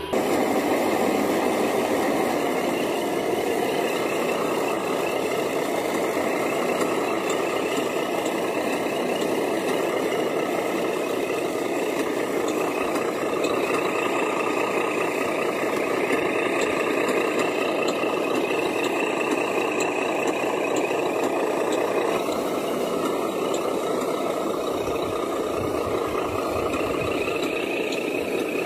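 Steady diesel truck engine sound, running evenly without letup; its tone shifts slightly about 22 seconds in.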